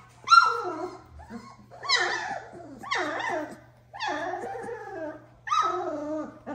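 Doberman puppy whining and crying in five drawn-out calls, each falling in pitch, about a second apart.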